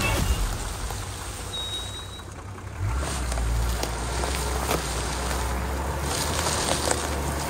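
Nissan Patrol Y60 off-roader's BMW M57 diesel engine running with a steady low drone that sets in about three seconds in, with wind on the microphone and a few light knocks.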